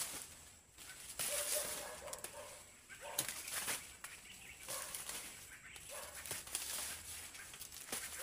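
Dry maize leaves and stalks rustling and crackling as they are pushed through and bent over by hand, with a few sharp snaps. A few short calls, likely hens, sound in the background.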